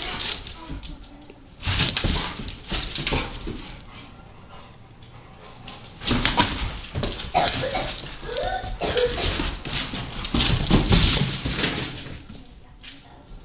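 Rottweiler puppy's claws scrabbling and skittering on a tile floor in bursts as it chases, the longest stretch in the second half, with a few short whimpers in the middle.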